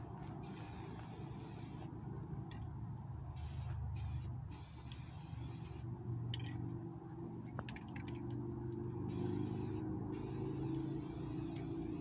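Aerosol can of black spray paint hissing in a string of short bursts, then a longer steady spray near the end. A low rumble runs underneath.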